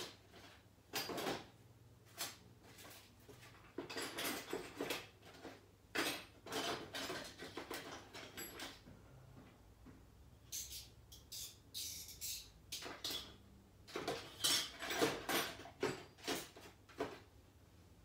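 Small parts and plastic being handled during a computer build: irregular rustles, scrapes and light clatter, with a few sharp hissy scrapes about two thirds of the way in.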